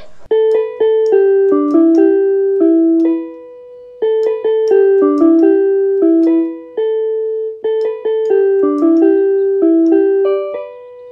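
Yamaha electronic keyboard played one note at a time by a learner, a short melody picked out and repeated three times.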